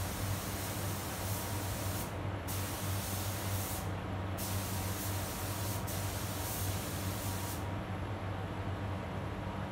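Paint spray gun hissing in passes, cutting out briefly about two and four seconds in and stopping near the end, over the steady hum of the spray booth's fans.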